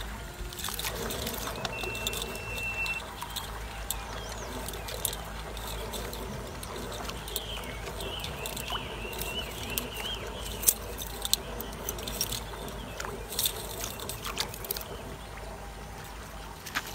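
Water trickling and dripping off a wet gill net with floats as it is hauled hand over hand out of the water, with many scattered sharp drips and clicks.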